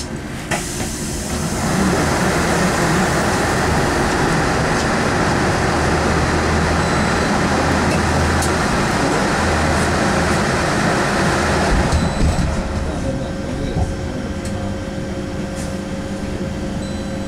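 Cabin noise of a KAMAZ-6282 electric bus under way: steady tyre and road noise over a low electric hum. The road noise swells about two seconds in and eases off after about twelve seconds.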